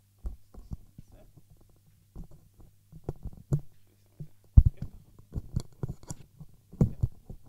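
Microphone handling noise: irregular thumps, knocks and rustles as a headset microphone is put on and adjusted, over a steady low electrical hum.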